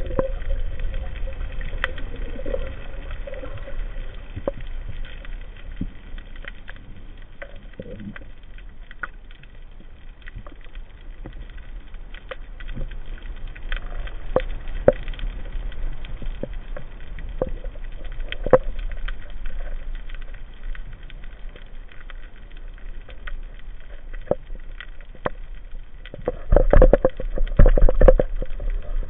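Underwater ambient noise heard through a diving camera's waterproof housing: a steady muffled rush with scattered sharp clicks and crackles. Near the end there is a stretch of much louder low rumbling and thumps.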